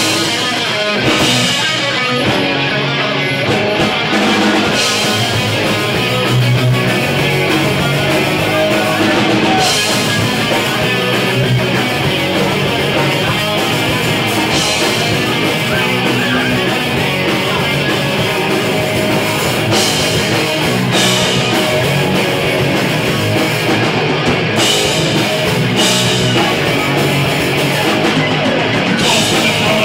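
Live rock band playing loud: electric guitars, bass guitar and a Sonor drum kit, in a passage without singing.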